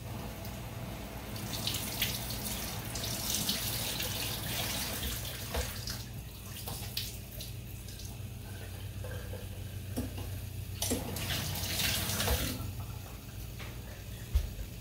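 Water running from a kitchen tap into a sink in two spells, a longer one near the start and a shorter one later, with a few light clicks and a steady low hum underneath.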